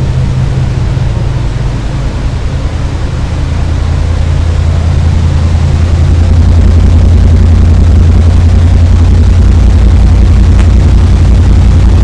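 Oldsmobile 307 V8 engine of a 1987 Cutlass Supreme running steadily as it warms up after a cold start, growing louder about halfway through.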